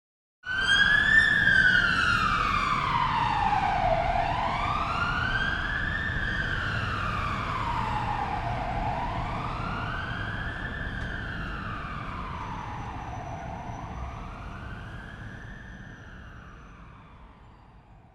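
Police car siren in a slow wail, its pitch rising and falling about every four to five seconds, over a low vehicle rumble. It starts suddenly, is loudest at first, and fades steadily away.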